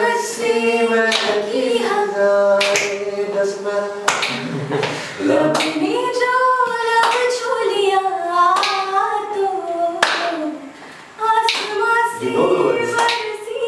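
Voices singing a cappella, held, gliding notes of a devotional song, with hand claps keeping the beat; the singing breaks off briefly about eleven seconds in, then carries on.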